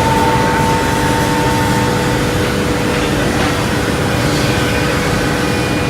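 CNC scroll saw machine running, a loud steady mechanical drone with a constant hum; one higher tone in the hum fades out about two seconds in.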